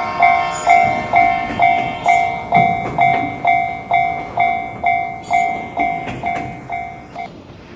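Railroad crossing warning bell ringing kan-kan at about two strikes a second, growing fainter before it stops about seven seconds in, with a train's running rumble underneath.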